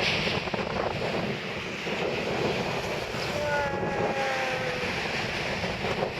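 Wind buffeting the microphone over waves breaking on the shore. A faint, slowly falling tone sounds for a moment about halfway through.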